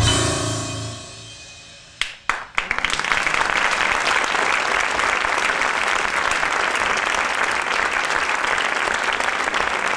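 Music fading out, then about two seconds in a few scattered claps break into sustained audience applause.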